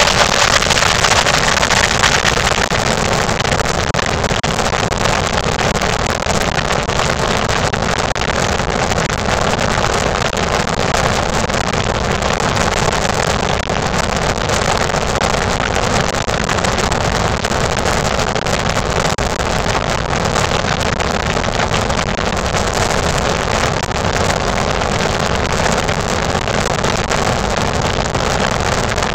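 Steady wind rush and road noise from a vehicle driving at highway speed, a little louder in the first two seconds.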